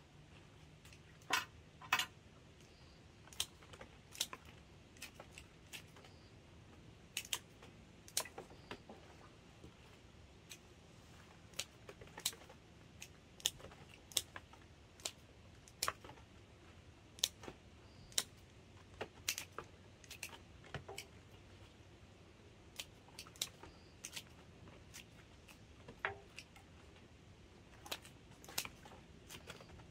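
Pruning shears snipping hydrangea stems into cuttings: irregular sharp snips and clicks, one every second or two, over a faint low hum.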